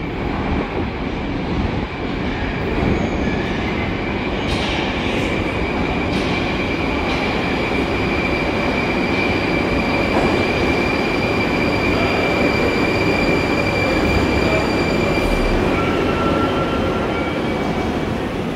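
Moscow Metro train running along the rails through a station: a steady heavy rumble of wheels on track, with a high wheel squeal held from about a second in until about three seconds before the end. A few sharp clicks cut through it, around four to seven seconds in and again near sixteen seconds.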